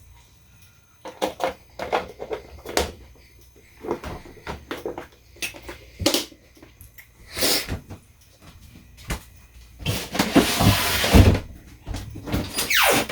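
Kitchen clatter: a string of knocks and clicks from things being handled, with a longer rush of noise lasting about a second and a half near the end.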